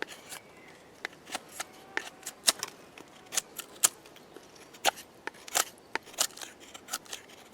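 The Cold Steel Recon 1 Tanto folding knife's blade shaving a piece of wood: a series of short, sharp cutting strokes at an irregular pace, roughly one or two a second. This is a sharpness check after the blade has cut through tin.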